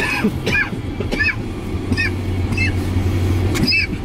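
A small bird chirping, short high chirps repeating irregularly about every half-second to second, over a steady low engine hum.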